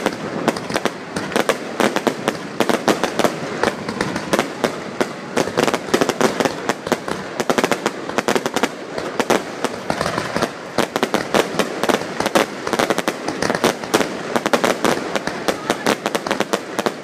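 Fireworks display at full tilt: many aerial shells bursting with crackling glitter stars, giving a dense, unbroken stream of sharp pops and crackles.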